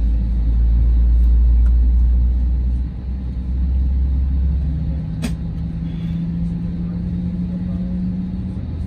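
Steady low rumble inside an Airbus A320 cabin as the aircraft moves slowly on the ground. A deep hum fades out about three seconds in, a steady, slightly higher hum carries on, and there is a single sharp click about five seconds in.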